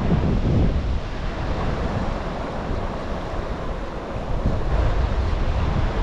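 Rushing river water with wind buffeting the microphone, a steady noise heavy in the bass, getting louder a little past halfway.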